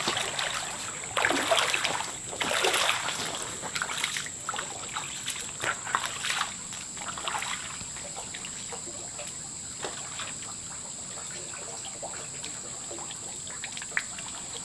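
Feet wading through a shallow creek, water splashing with each step over the first several seconds, then the steady trickle of the flowing stream. A thin, steady high whine runs underneath throughout.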